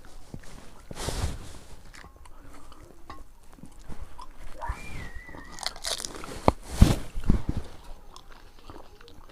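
Crisp phuchka (panipuri) shells being bitten and chewed close to the microphone: irregular crunches, loudest about a second in and again between six and seven and a half seconds, between quieter chewing.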